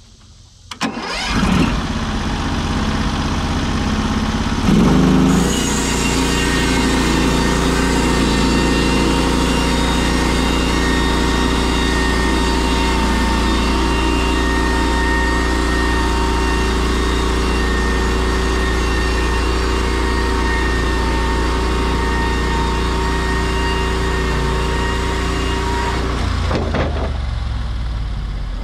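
Norwood HD36V2 portable sawmill's engine starting about a second in, then throttled up a few seconds later and running steadily at high speed, before dropping back toward idle near the end.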